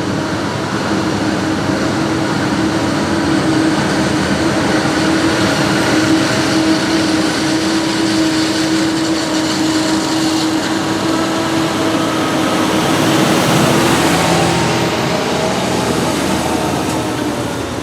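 Heavy farm diesel engine running steadily with a constant engine tone, growing louder about two-thirds of the way through and easing off toward the end.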